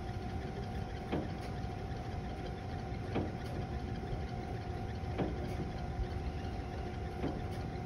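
Rapid Dye dyeing machine running just after start with its motor on: a steady motor hum with a steady tone over it, and a sharp click about every two seconds.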